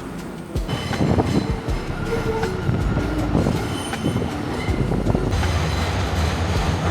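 A train passing on the rails, its wheels clattering with thin squeals above. It gets suddenly louder about half a second in and stays loud.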